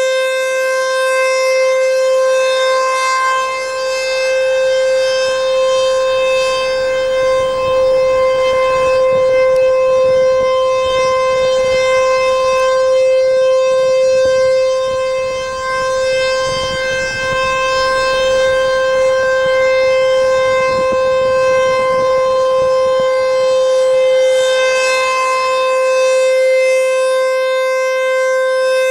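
ASC T-128 rotating tornado siren sounding a steady, unchanging tone at full speed during a siren test. Its loudness swells and fades slowly as the rotating head sweeps round.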